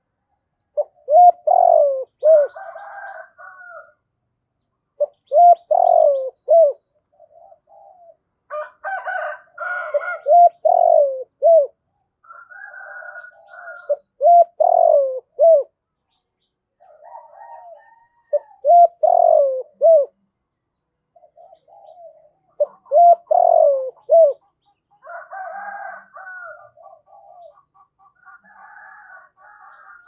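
Spotted dove cooing: a phrase of several low coos, repeated about every four seconds. Fainter bird calls come between the phrases.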